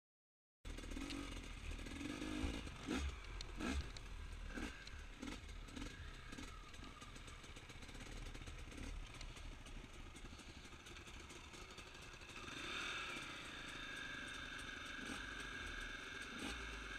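Dirt bike engine running at low revs, with scattered clicks and knocks; the sound cuts in suddenly under a second in and grows louder about two-thirds of the way through.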